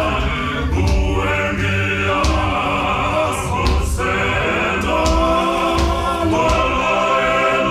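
Male gospel choir singing a hymn in several-part harmony, with held notes and deep bass voices underneath.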